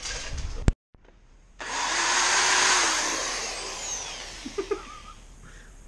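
A handheld power tool runs for about two and a half seconds while cutting into a car's hood, then winds down with a falling whine.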